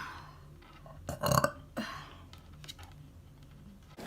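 A person burping: one short, loud burp about a second in, then a smaller sound, followed by a few faint clicks.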